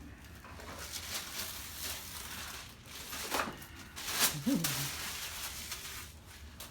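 Rustling and shuffling as a person moves onto a padded treatment table and settles face down, with a brief low voice sound about halfway through.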